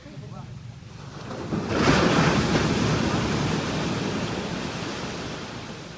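An ocean wave breaking and washing in, swelling about a second and a half in, then fading slowly.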